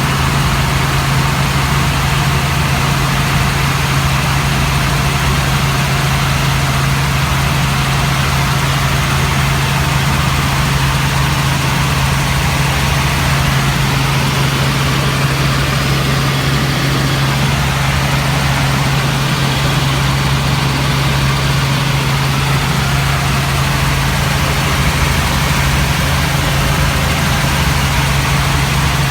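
Helicopter in flight heard from inside the cabin: a loud, steady drone with a strong low hum over a hiss of noise.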